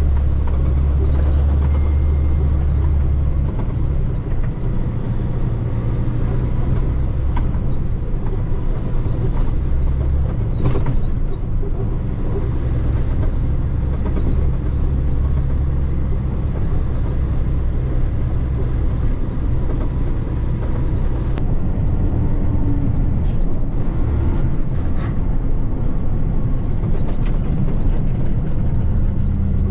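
Heavy diesel log truck engine pulling a load of logs uphill on a snowy road, a steady low drone whose pitch shifts a few times. A few sharp knocks are heard around the middle and later on.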